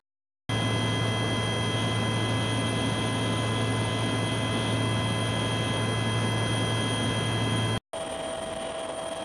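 Loud, steady drone of an aircraft engine with several fixed high whining tones over a low hum. Near the end it cuts off abruptly, and a quieter drone of the same kind follows.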